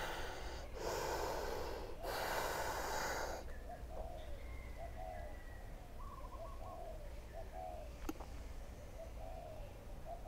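Heavy breathing, two or three long rushes of air in the first three and a half seconds, as the belly is emptied for a stomach vacuum. The breath is then held, leaving faint short bird calls and a single click about eight seconds in.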